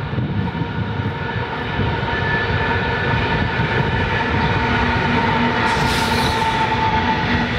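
Two diesel-electric locomotives at the head of a coal train pass close by with their engines running, followed by the steady rolling sound of coal hopper wagons' wheels on the rails. A brief hiss about six seconds in.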